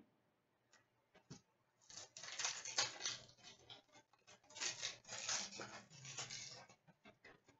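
Hockey trading cards and a pack being handled in the hands: rustling, light scraping and small clicks. It comes in bursts from about two seconds in until near the end.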